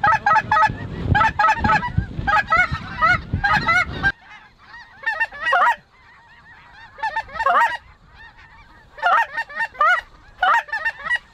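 Geese honking: many overlapping short calls in bursts, densest through the first four seconds and again from about two seconds before the end, thinning in between. A low rumble runs under the calls for the first four seconds.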